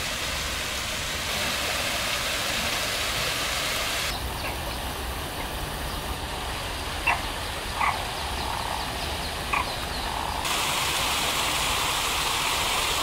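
Steady outdoor ambience of running water around a garden pond and stream, with three short bird calls in the middle.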